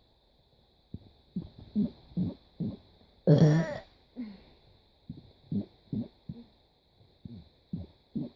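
A person burping: one loud, drawn-out burp about three seconds in, among many short, low throaty burps and gulps.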